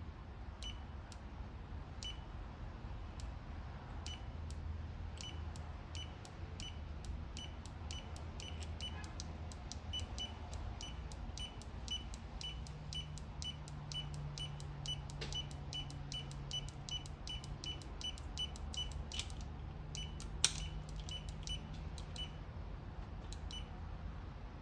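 Hand ratchet clicking in a steady run of light clicks, about two to three a second, with a few short pauses and one sharper click near the end; a low hum sits underneath from about halfway.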